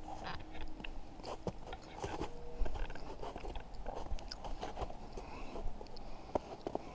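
Footsteps crunching on packed snow and ice, an irregular run of crisp crunches.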